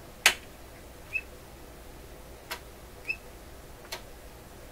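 Rotary leakage-test voltage selector on a Heathkit C-3 condenser checker clicking from one position to the next as the test voltage is stepped up during a capacitor leakage test: a loud click about a quarter second in and fainter clicks later. Faint short high chirps come in between.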